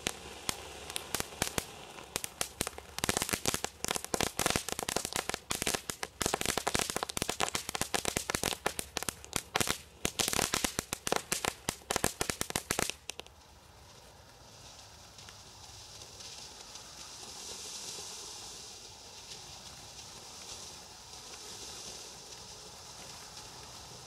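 Bright Star Volcanic Meltdown cone fountain firework burning. For about the first thirteen seconds it gives a dense, rapid crackling. Then it settles into a steady hiss of spraying sparks that swells and eases.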